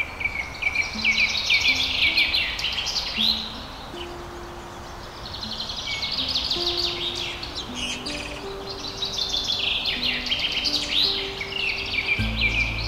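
Small songbirds chirping and twittering in quick, dense bursts, over soft instrumental music of slow, held single notes. A deep low note joins the music near the end.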